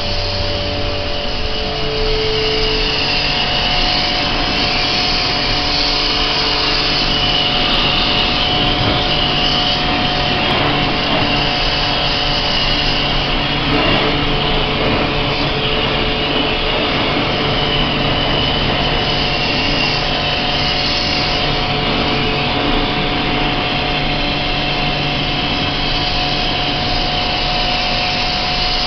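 High-pressure washer pump running steadily, with the hiss of its water jet spraying an air conditioner's indoor coil and blower and water spattering on a plastic drain sheet.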